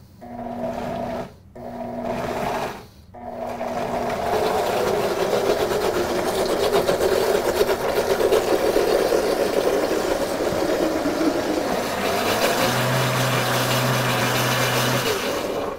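Countertop blender pulsed three times in short bursts, then run continuously for about twelve seconds, puréeing strawberries into a smooth purée. The motor cuts off sharply at the end.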